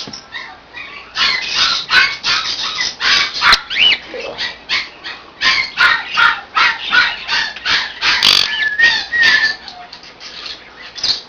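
Pet conure making rapid harsh squawks and chattering calls, several a second, with a short whistled note about eight seconds in.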